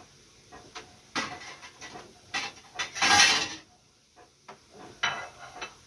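Kitchen clatter of plates and utensils clinking and knocking. About three seconds in comes the loudest sound, a short sizzling hiss from potatoes frying in a pan.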